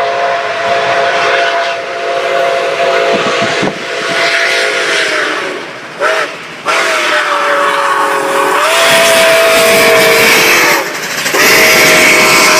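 Nickel Plate Road 765, a 2-8-4 Berkshire steam locomotive, blowing its chime whistle in long blasts, several notes sounding together. There is a short toot about six seconds in and a brief break before each new long blast. Steam hiss and train noise run underneath.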